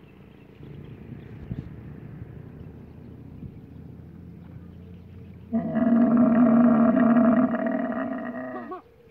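Dromedary camel bellowing: one long, loud, steady moan of about three seconds, starting a little past halfway and ending in a wavering fall in pitch. Before it there are a few seconds of quieter low rumbling.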